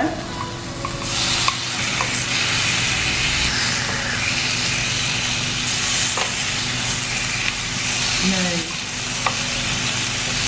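Raw beef slices sizzling loudly as they are laid on a hot Korean barbecue grill plate, a steady frying hiss, with a few sharp clicks of the metal tongs against the grill.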